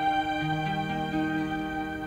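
Slow, sad background music of long held notes whose pitch changes every second or so.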